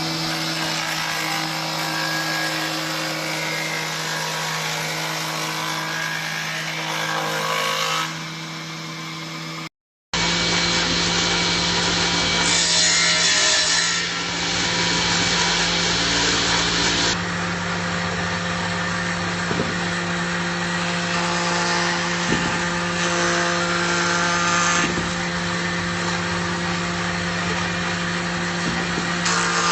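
Multipurpose woodworking planer machine running, its electric motor humming steadily while it cuts wood. The sound drops out briefly about ten seconds in, then the same machine continues.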